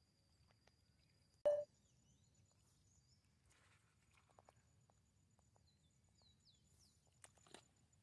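Mostly quiet outdoor background with one short, loud knock about a second and a half in, a few faint clicks, and some faint, high, short chirps near the end.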